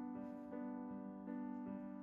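Background music: a soft electric piano playing sustained chords that change about every half second.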